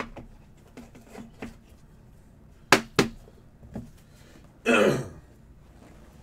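Hard plastic card holders clacking as they are handled and set down on a stack on the table: a few light taps, then two sharp clacks about three seconds in, one more a little later, and a short noisy burst about a second after that.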